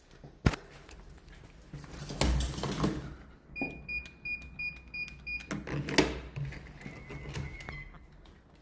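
A series of about six short, high electronic beeps, about three a second, followed later by a shorter steady beep tone, amid clicks and handling knocks.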